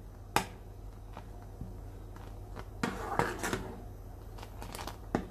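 Stainless steel ladle stirring milk tea in a metal saucepan. It clinks sharply against the pan about half a second in, then scrapes and knocks lightly around the three-second mark and clicks again near the end, over a low steady hum.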